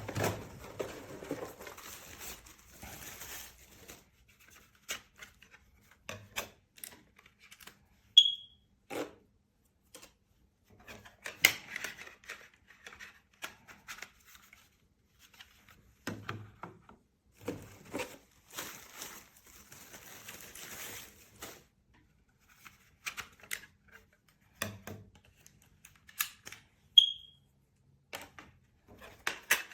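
Handling noise from unpacking and assembling AEGISLINK SC200 smoke and carbon monoxide alarms: plastic clicks, knocks and packaging rustle. Two short, high beeps sound, about 8 seconds in and near the end, as alarms chirp while powering on.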